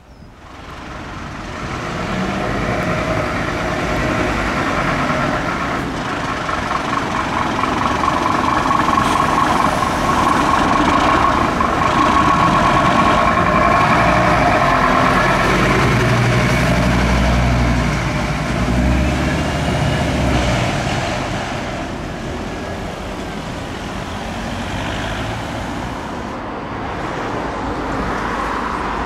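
Scania fire engine's diesel engine running as the truck drives past, with road traffic. The low rumble builds over the first couple of seconds and is loudest a little past the middle.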